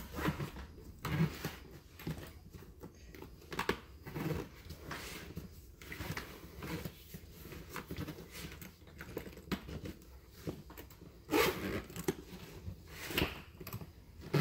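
Irregular rustling, clicks and light knocks of things being handled close to the microphone, with a couple of louder bursts near the end.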